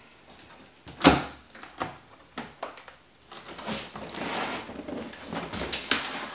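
Cardboard shipping box opened by hand: a sharp snap about a second in as the top flap is pulled free, then the stiff cardboard flaps scraping and rustling as they are folded back.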